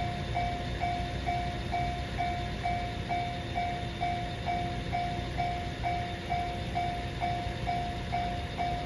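Railway level-crossing alarm ringing: a repeated electronic ding, a little over two strikes a second, over a low steady rumble.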